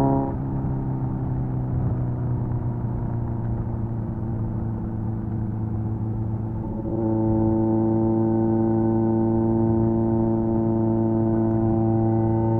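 Kawasaki Z900's 948cc four-cylinder engine through an SC Project exhaust. Right at the start the note drops into a rougher, quieter run with a slowly falling pitch, as on a closed throttle. About seven seconds in it settles into a steady, even drone.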